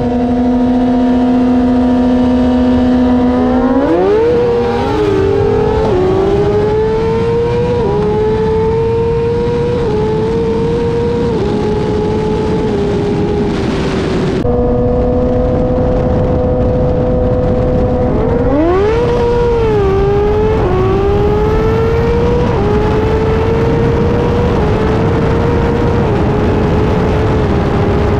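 Sport bike's engine heard from on board, holding steady revs, then going to full throttle about three seconds in and pulling hard through four or five quick upshifts, each a rising pitch that drops at the shift. After a sudden cut, the same again: steady revs, then a hard pull through the gears from about eighteen seconds in, with wind rush throughout.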